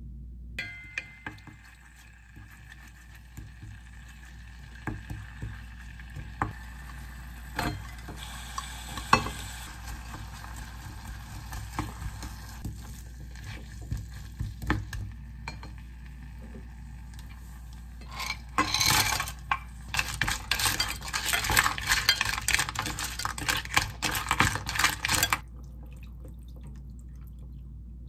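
A wooden spoon stirring and scraping chili-coated vegetables in a ceramic pot, knocking against its sides, with a light sizzle from the frying. About two-thirds of the way through there is a busy stretch of rapid scraping and clattering lasting several seconds, then it goes quieter.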